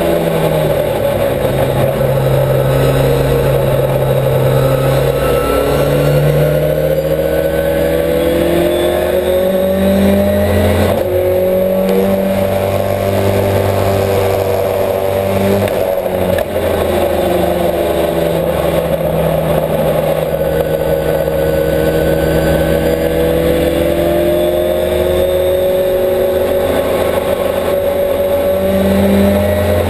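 Millington-engined Ford Escort race car heard from inside the cabin, its four-cylinder engine running at moderate revs with the note rising and falling with throttle and gear changes, the car being driven gently.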